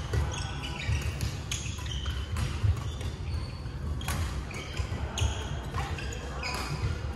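Badminton rallies: rackets striking shuttlecocks with sharp, irregular hits, mixed with short shoe squeaks on the wooden court floor, echoing in a large sports hall over a steady low rumble.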